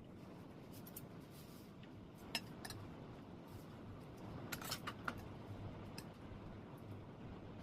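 Eating utensils clicking and clinking against dishes: a few scattered taps, then a quick cluster of clinks a little past halfway, over a steady low background hum.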